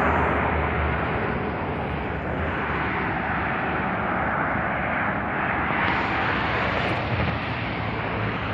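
Floodwater flowing across a desert wadi: a steady rushing noise with a faint low hum beneath it.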